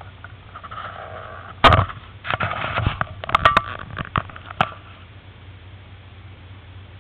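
A cluster of sharp knocks and scraping rustles on a helmet-mounted camera and its microphone over a low steady hum. The loudest knock comes a little under two seconds in, and the knocks stop about five seconds in.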